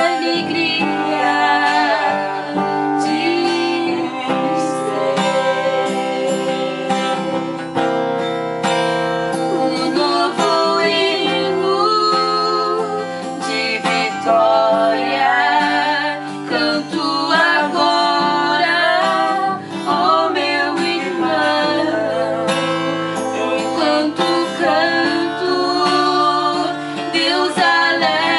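Music: a guitar-led instrumental break in a gospel hymn, with melodic lines over steady chords.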